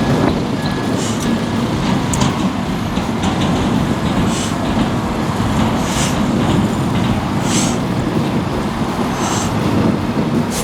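Hook-lift roll-off truck dragging a steel roll-off dumpster up onto its bed: a loud, steady metallic rumbling and grinding, with faint clanks every second or two.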